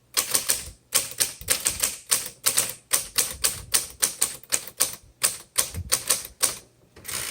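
Smith-Corona Electra 220 electric typewriter being typed on at a steady pace, a fast run of key strikes about four or five a second over the low, steady hum of its running motor.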